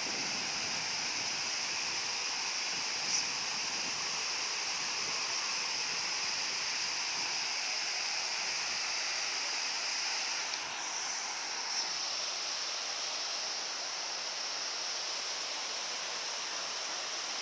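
Waterfall rushing steadily: a constant hiss of falling water, with a couple of faint brief clicks.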